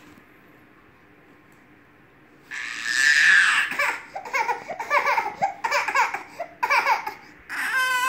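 A baby bursts into crying about two and a half seconds in, after a quiet start, then goes on in short choppy sobs and breaks into a long wail that falls in pitch near the end.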